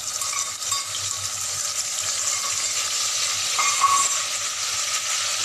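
Ground spice mixture of chili, cumin and coriander powder sizzling steadily in hot soybean oil with fried potato pieces, stirred in the pot with a spatula: the freshly added spices frying in the oil.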